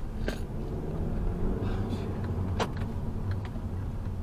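A car driving at low city speed and picking up pace, heard from inside the cabin: a steady low engine and road rumble, with a few sharp clicks.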